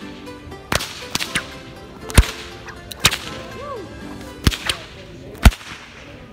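Bullwhip cracking over and over: a series of sharp cracks about a second apart, some in quick doubles. The loudest come about two seconds in and near the end.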